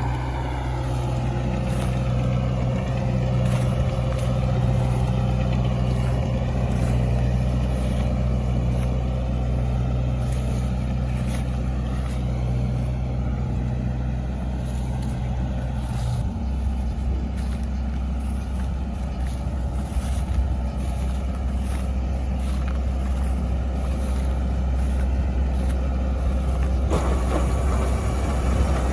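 A large vehicle engine running steadily, its note changing about 16 seconds in and again near the end.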